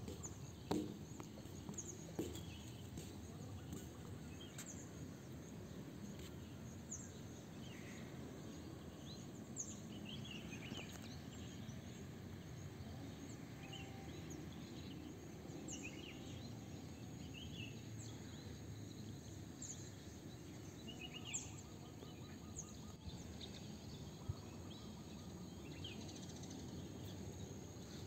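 Outdoor ambience: small birds giving scattered short chirps over a steady low background rumble, with a few brief rustles or knocks near the start.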